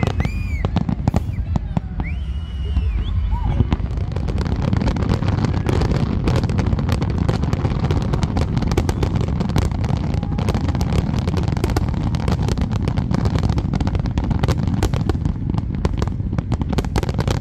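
A fireworks finale barrage. Scattered bangs over a low rumble thicken at about four seconds in into a continuous salvo of rapid crackling reports and booms.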